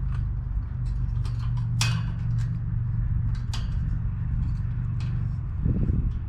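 Scattered light metallic clicks and taps as ties are worked against a steel bicycle basket, over a steady low rumble, with a duller knock near the end.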